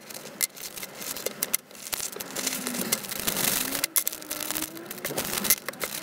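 Handling noise of small items being unpacked by hand: rustling and many light clicks as lavalier-mic accessories, cables and a small plastic bag are picked up and set down on a table.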